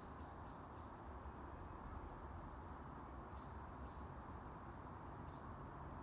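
Faint outdoor ambience: a steady low background rumble with faint, short, high-pitched chirps recurring in small clusters.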